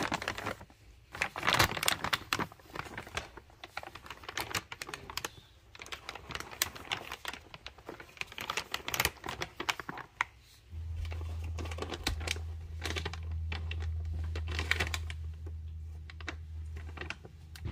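Dry cat-food kibble rattling and clicking irregularly as it is handled and scooped from its bag, with the bag rustling. A steady low hum comes in about two-thirds of the way through.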